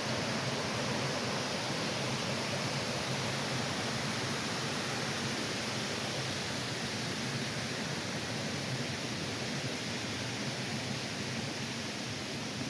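Steady rush of flowing water from a mountain stream or small waterfall, fading slightly towards the end.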